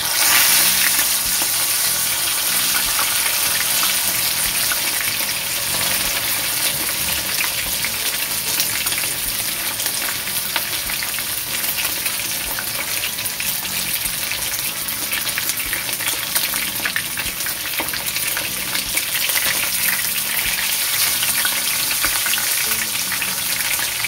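A whole seasoned snapper frying in hot oil, with a dense crackling sizzle. It flares up loudest right at the start as the fish settles into the oil, then holds as a steady fry.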